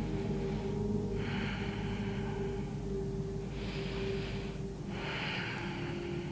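A woman's slow, audible breaths, three of them each about a second long, over soft background music with steady sustained tones.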